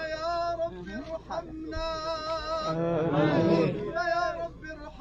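A man chanting a dua (prayer of supplication) in a melodic, drawn-out voice, holding long steady notes with short breaks between phrases; a lower voice comes in briefly about three seconds in.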